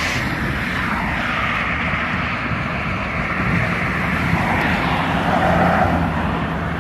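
Steady outdoor engine and traffic noise, swelling louder about five to six seconds in.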